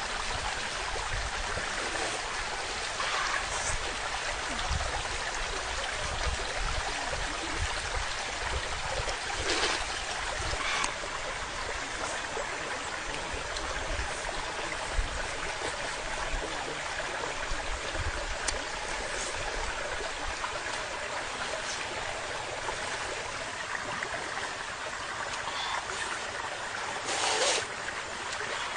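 Steady rushing of running water, like a stream, throughout, with a few brief louder noises on top, one of them near the end.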